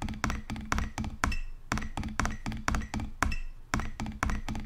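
Drumsticks striking a drum in a steady, even rhythm of about four strokes a second: the percussion part of a band piece played at 120 beats per minute.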